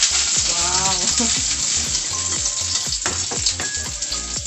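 Garlic sautéing in hot oil in a steel wok: a loud, steady sizzle, stirred with a spatula.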